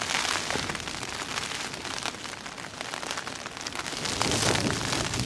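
Heavy rain falling on a tarp shelter: a dense hiss of many separate drop ticks.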